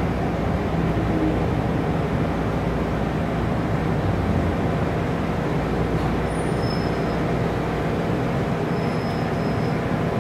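Steady interior rumble of an MTR M-Train (Island Line electric multiple unit) car at a station platform, with a few faint, brief high tones in the middle.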